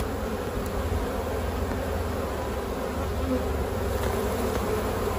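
Honey bee colony buzzing in an open hive: a steady, even hum.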